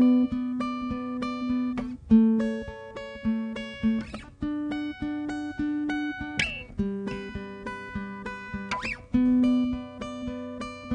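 Background music on acoustic guitar: a picked pattern of single notes that changes every fraction of a second.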